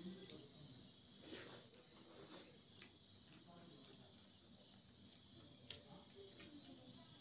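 Near silence with faint hand-eating sounds: a few soft clicks and smacks as fingers mix rice and curry on a plate and a mouthful is taken. Under them runs a steady high-pitched whine.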